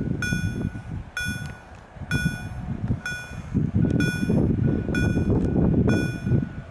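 Level-crossing warning bell ringing about once a second, each stroke a bright ringing tone. A low rumble sits underneath and grows louder in the second half.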